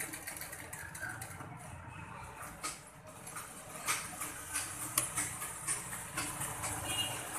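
Sewing machine stitching a neckline seam, with irregular ticks and clicks of the mechanism and fabric being shifted. It goes quieter for a moment a couple of seconds in, then the ticking picks up again.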